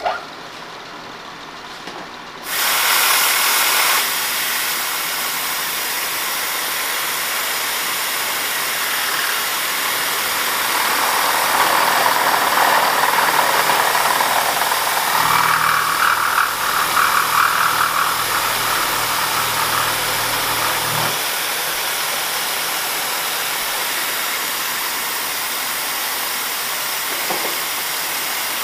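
Steady hiss of air from a mist-coolant nozzle, switching on about two and a half seconds in, over a DoAll vertical mill's end mill taking a roughing cut on a flat of a small lock part. Around the middle a rougher cutting sound and a low machine hum come in for several seconds, then stop.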